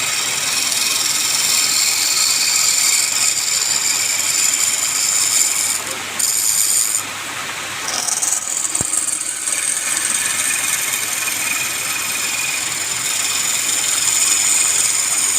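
Wood lathe running while a turning tool cuts the spinning wood: a steady hiss with a high whine that eases off briefly about six seconds in and again around seven seconds.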